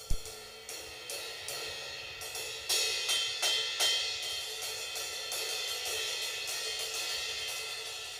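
Chang DE series 16-inch medium crash cymbal of B20 bronze, struck with drumsticks. It starts with a low thump, then a series of separate hits over the first four seconds, then a steady wash of quick strokes.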